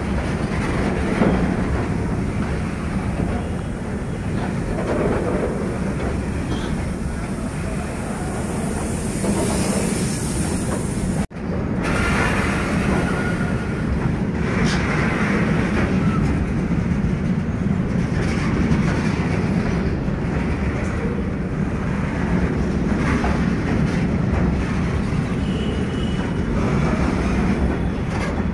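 Indian Railways freight train of open and hopper wagons passing close by, steel wheels running steadily on the rails. The sound cuts out for an instant about eleven seconds in.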